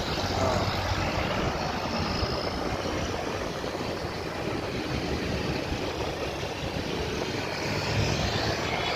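Road traffic passing close by, mostly big buses: a steady rumble of diesel engines and tyre noise.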